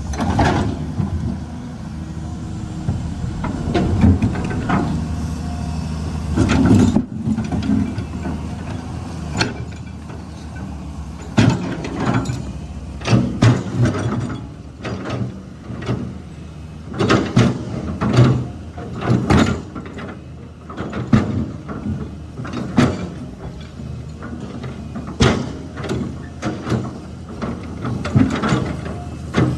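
Caterpillar 320 hydraulic excavator's diesel engine running steadily, with frequent irregular clanks and scrapes as the bucket works against rock.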